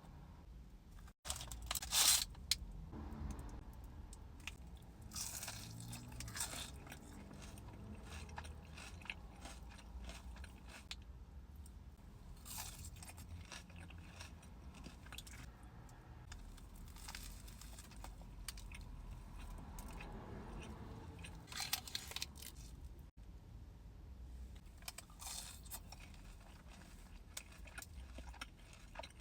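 A person biting, crunching and chewing fast food, close to the microphone, with crisp crunches every few seconds between softer wet chewing. The loudest crunch comes about two seconds in.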